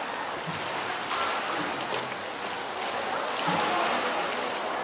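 Water sloshing and splashing as a polar bear swims through its pool, over a steady wash of moving water.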